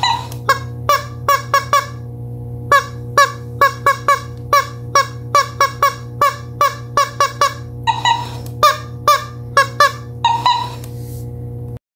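Rubber chicken squeezed over and over: quick runs of short squeaks, with a few longer squawks near the start, about eight seconds in and about ten seconds in, over a steady low hum. The sound cuts off suddenly just before the end.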